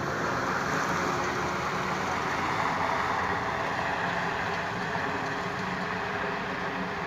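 Snowplough truck driving past and away up a snowy road: steady engine hum under a broad rushing noise, loudest a second or two in and slowly fading as it moves off.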